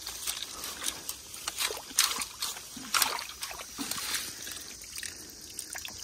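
Shallow ditch water sloshing and trickling as a long-handled landing net is swept through it and lifted out, with irregular sharp splashes.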